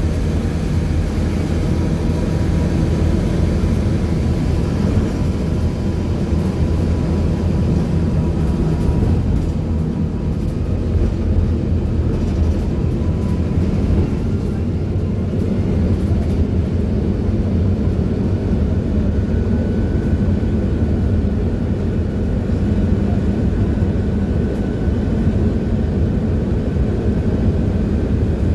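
Cabin sound of a PAZ 320414 city bus under way: a steady low engine and road rumble, with a faint thin whine that shifts higher about halfway through.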